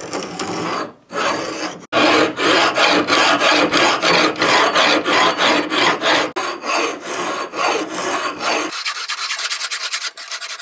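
Steel hand file rasping across a hatchet's steel blade in repeated strokes, filing a convex bevel into the edge. For the last couple of seconds the strokes sound thinner and higher.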